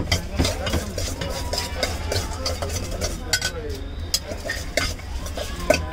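Soya chaap pieces being stirred by hand in marinade in a stainless steel bowl, a metal scoop clicking and scraping against the bowl's side many times.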